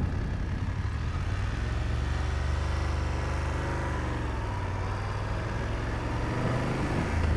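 BMW F750GS motorcycle's parallel-twin engine running at low revs as the bike rides slowly, a steady low engine note with small rises and falls in pitch.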